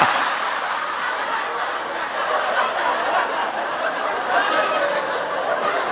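An audience laughing together, a steady wash of many people's laughter.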